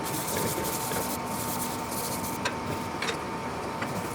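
Steady workshop background hiss with a constant thin high tone, and a few light clicks and taps.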